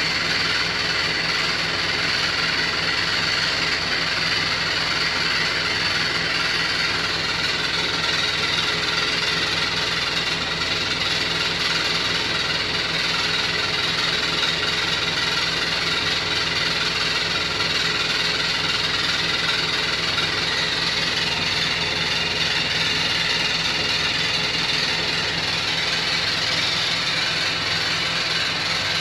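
Beko WY124PT44MW 12 kg washing machine running with a steady rapid rattle and knocking from inside the drum housing. The cause was a transport bolt left in place at installation, along with unset lock-nuts on the feet.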